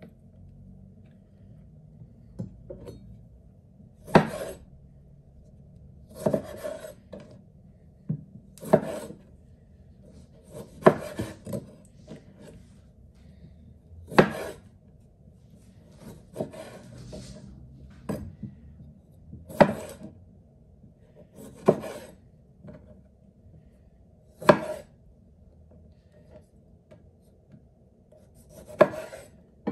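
Kitchen knife slicing cherry tomatoes in half on a wooden cutting board: about a dozen sharp knocks of the blade reaching the board, roughly one every two seconds, with softer cutting sounds between.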